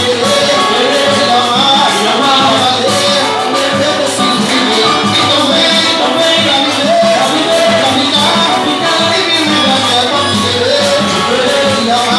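A live band playing Latin-style music with a steady beat and a melody line over it.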